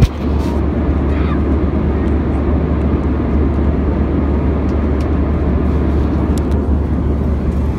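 Steady low rumble of an Airbus A321 airliner cabin in flight, engine and airflow noise, with one sharp knock at the very start.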